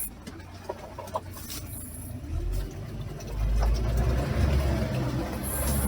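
Off-road vehicle engine running, a low rumble that builds about two seconds in and grows louder as it works under load.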